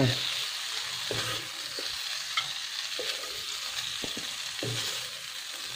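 Cooked shrimp sizzling steadily in hot oil in a nonstick wok, with a few light knocks and scrapes of a wooden spatula as the shrimp are lifted out.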